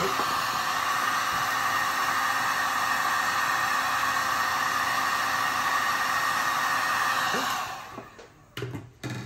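Heat gun blowing steadily as it shrinks heat-shrink tubing over crimped wire splices, then switched off about three quarters of the way through, its sound dying away over half a second. A couple of light knocks follow near the end.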